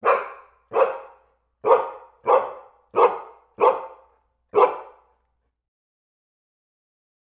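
A dog barking seven times in about five seconds, each bark short and sharp, followed by silence.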